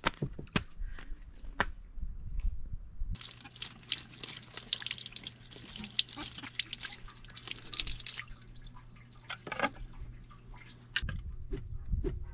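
Water running and splattering for about five seconds, with scattered drips before and after it. A low steady hum comes in with the running water.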